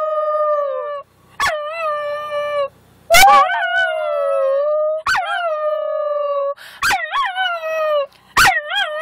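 A schnauzer howling, mixed with a person howling along: a run of about six drawn-out howls, each a second or two long, sliding down in pitch, several of them wavering.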